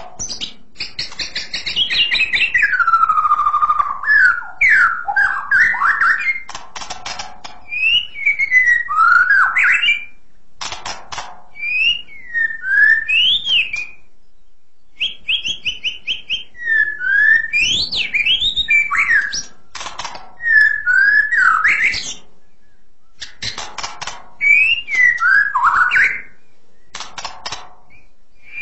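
White-rumped shama singing: phrases of clear whistled notes sliding up and down, mixed with quick rattling clicks. The phrases are broken by short pauses.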